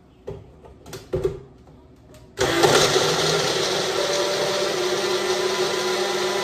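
A few knocks as the personal blender's cup is fitted onto its base, then, about two and a half seconds in, the blender motor starts and runs steadily at full speed, blending frozen strawberries and pineapple.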